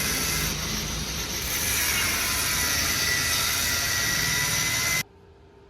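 A power tool running steadily with a loud hiss and a thin high whine, cutting off abruptly about five seconds in.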